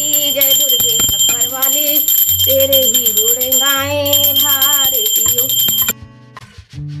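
Small brass puja hand bell rung rapidly and continuously during an aarti, with a devotional aarti hymn sung over it. Both cut off abruptly about six seconds in, and fainter music follows.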